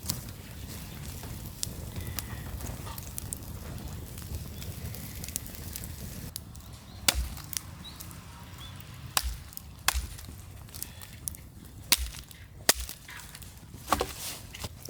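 Outdoor wood fire crackling with scattered small pops. From about halfway in come six louder, sharp wooden knocks.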